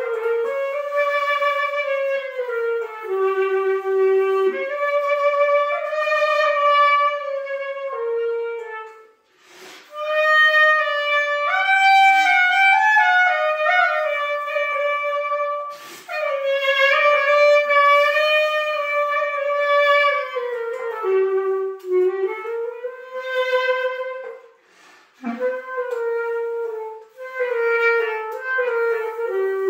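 Clarinet played solo: a single melody line in long, flowing phrases, with short breaks about nine seconds in and again about 25 seconds in.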